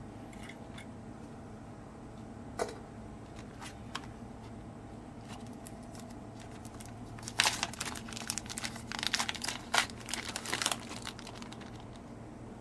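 Plastic bacon packet crinkling and tearing as it is opened, a run of sharp rustles lasting about three seconds in the second half. A single light tap comes a few seconds earlier.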